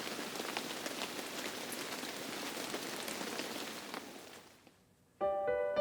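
Steady rain pattering, fading out about four and a half seconds in; piano music starts near the end.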